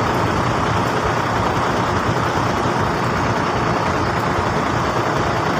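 Steady roadside traffic and engine noise, an even din with no single event standing out.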